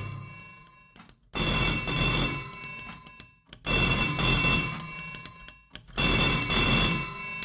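Old candlestick telephone's bell ringing three times, each ring starting sharply and fading away, about two and a half seconds apart.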